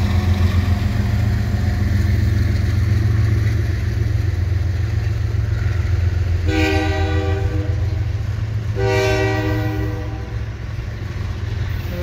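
Double-stack intermodal freight cars rolling slowly past with a steady low rumble. About six and a half seconds in, an ES44DC diesel locomotive's horn sounds two long blasts of about a second each, a second apart.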